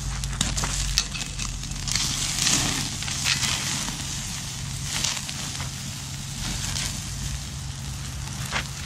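Wood campfire crackling, with many small sharp pops scattered through a steady hiss.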